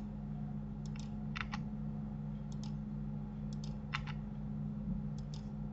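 Computer mouse and keyboard clicks, about ten of them spread out and several in quick pairs, over a steady low hum.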